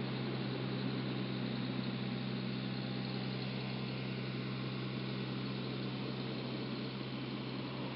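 Vehicle engine idling: a steady low hum with an even hiss over it.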